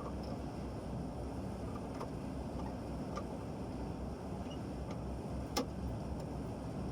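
Steady low mechanical hum with a few faint light clicks, the sharpest about five and a half seconds in.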